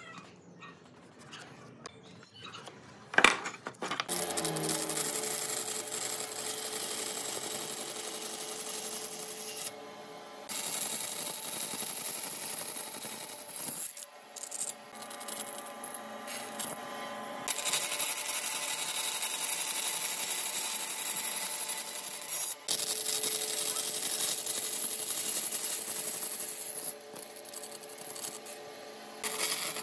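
A sharp click about three seconds in, then a band saw running and cutting a row of shallow slots across a curved wooden blank. The cutting hiss drops back briefly several times between cuts.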